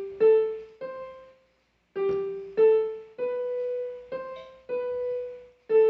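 A keyboard played one note at a time: about eight separate held notes moving among a few neighbouring pitches, with a short silent gap about one and a half seconds in.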